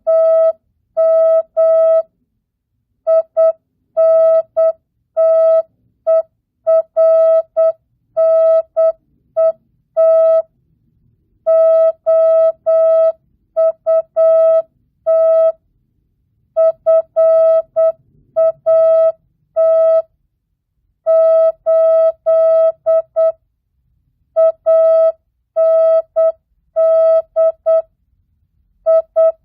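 Morse code practice tone sending mixed text at 8 words per minute with standard (non-Farnsworth) spacing. Dots and dashes of one steady mid-pitched beep, in groups separated by pauses of about a second.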